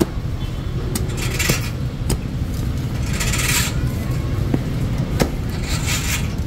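Street stall noise: a steady rumble of traffic under sharp, irregular clinks and knocks of metal utensils and dishes, with three short scraping sounds.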